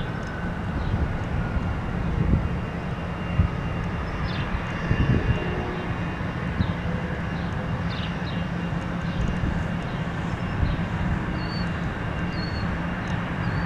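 Distant FedEx Airbus A300-600 twin-jet on final approach: a steady low rumble of its engines. A few faint high chirps come through near the end.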